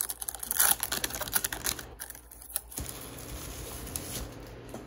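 Foil trading-card pack being opened and handled: a dense run of quick crinkling clicks for about the first two seconds, then a softer, steady rustle.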